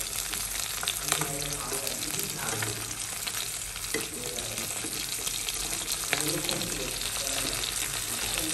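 Small whole fish sizzling in hot oil in a pan, with a steady fine crackle. Metal tongs click and scrape against the pan a few times as the fish are moved and turned.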